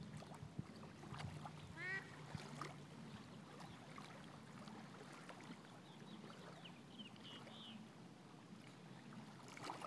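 Faint sloshing and small splashes of a small dog wading in shallow lake water, over a steady low hum. About two seconds in comes a short, falling honk-like call from a duck or goose, the loudest sound, and later a few faint high bird chirps.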